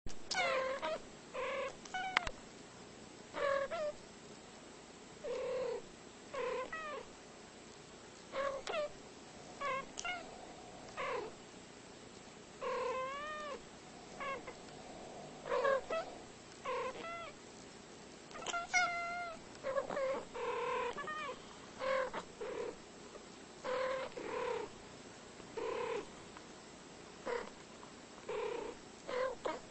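Domestic cats making short chirping meows and trills, one after another about every second, many of them bending up and down in pitch like a back-and-forth chatter.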